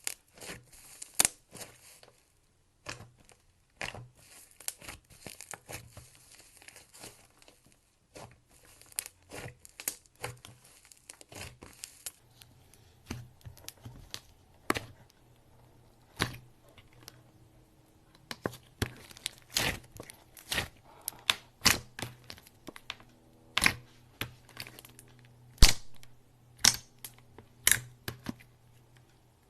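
Clay slime being squished, stretched and folded by hand, giving irregular sharp clicks, crackling pops and little tearing sounds.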